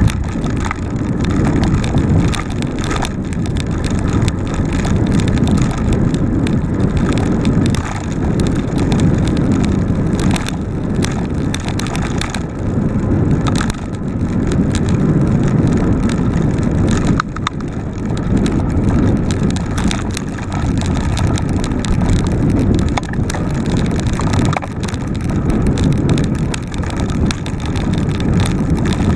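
Mountain bike riding fast over a dirt singletrack, heard from a camera mounted on the bike: heavy wind buffeting on the microphone and tyre rumble, with frequent small rattles and knocks as the bike hits bumps.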